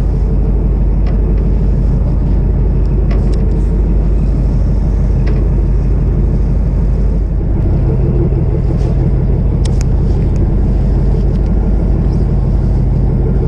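Fishing boat's engine running steadily, heard from on deck, its note shifting slightly about halfway through.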